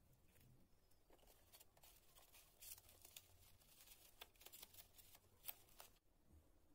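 Faint rustling and irregular light clicks of paper and cardboard being handled and folded by hand, stopping suddenly near the end.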